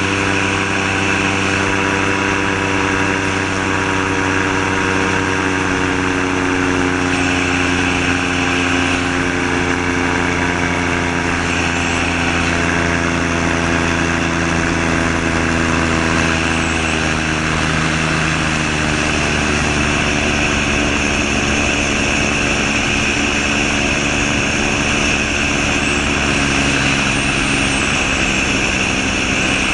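Gyrocopter in flight, its Subaru EA-81 flat-four engine driving a pusher propeller through an NSI gearbox, running steadily under a rush of airflow. The engine note falls slightly partway through.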